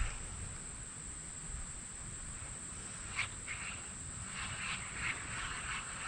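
Steady, high-pitched insect drone, with a few faint short chirps in the middle.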